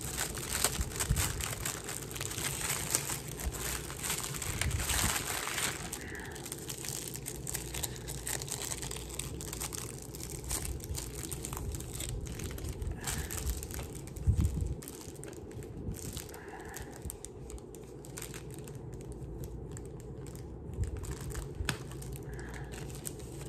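Packaging crinkling and rustling as an item is unwrapped by hand, dense for the first six seconds or so, then thinning to scattered crackles and small handling clicks.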